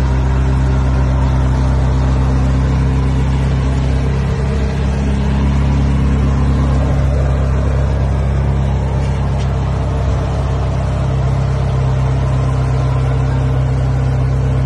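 Car engine idling: a steady, loud, low drone.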